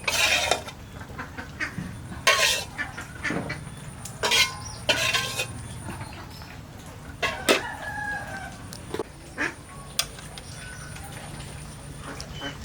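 Domestic fowl calling: a run of short, loud, separate calls spaced a second or two apart over a low steady background.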